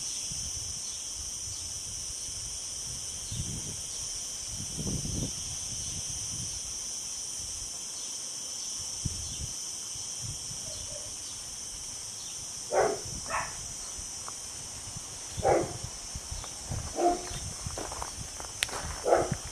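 A steady, high insect drone, with several short dog barks starting about two-thirds of the way in.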